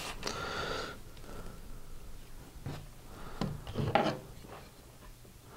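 Handling noise from the plastic handle of a hot air rework wand and a knife on the bench: rubbing with a few light taps and clicks, the sharpest a little before the four-second mark.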